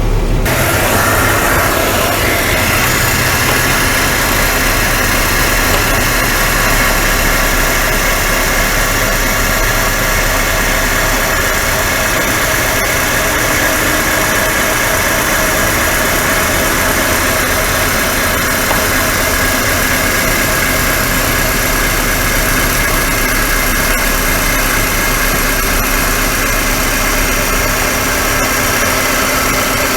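A motor switched on and running steadily with a constant hum and vibration.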